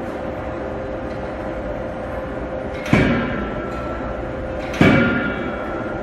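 Two heavy blows of a CNC forging hammer about two seconds apart, each with a metallic ring that fades over about a second, over a steady machine hum.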